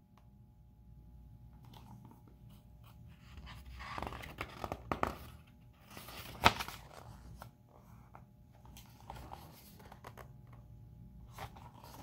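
Pages of a large picture book being handled and turned by hand: quiet paper rustling, rising to a louder rustle a few seconds in, and one sharp snap of a page about halfway through.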